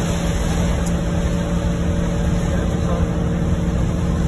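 Steady engine and tyre noise inside a car's cabin while driving on a wet road in heavy rain, with rain on the windscreen and the wipers working.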